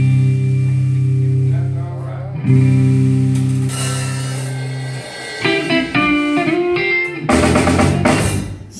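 Gospel band playing an instrumental passage: held low chords for the first half, then guitar licks, with the drum kit coming in about seven seconds in.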